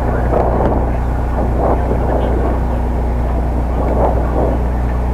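A steady low mechanical hum, with distant voices calling out now and then.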